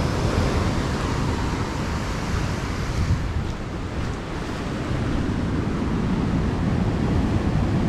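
Sea surf washing onto a beach, with wind rumbling on the microphone.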